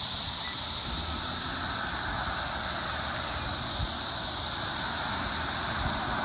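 Outdoor street ambience: a loud, steady high-pitched hiss over a low rumble of street noise.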